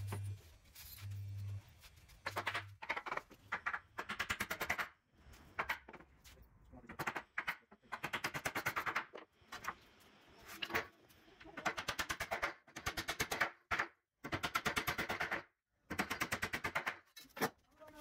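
A power tool fastening a block board bed frame: about ten bursts of rapid, evenly spaced clattering, each lasting around a second, with short pauses between them.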